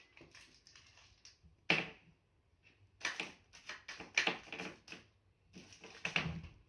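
A kitten batting and scrabbling after a wrapped candy on a wooden floor: rapid clattering ticks in separate flurries. The loudest strikes come about two seconds in and again around four and six seconds.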